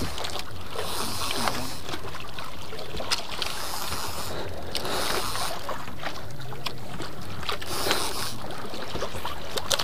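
Sea water lapping and sloshing against the hull of a small outrigger fishing boat in surges every second or so, with wind on the microphone and a few faint clicks.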